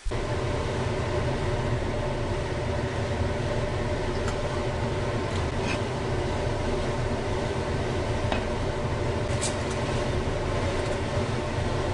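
Steady mechanical hum and rushing noise, even throughout, with a few faint light clicks.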